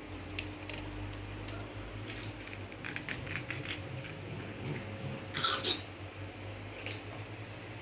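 Cats eating: faint, scattered chewing and crunching with small clicks, two of them louder about five and a half seconds in.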